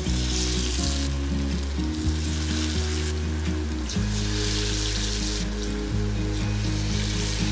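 Falafel balls deep-frying in hot oil, sizzling and bubbling, the sizzle swelling three times as fresh balls are slid in off a spoon.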